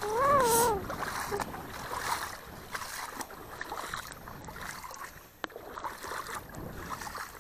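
Small boat being rowed on calm water: oars dipping and splashing softly, with a drawn-out pitched squeak in the first second.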